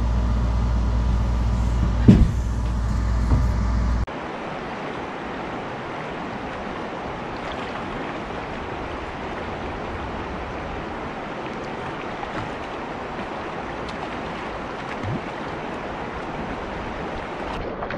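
Steady rush of a shallow stream flowing around a wading angler. For the first four seconds a steady low hum from a window air conditioner is heard instead, with two thumps, before it cuts to the water.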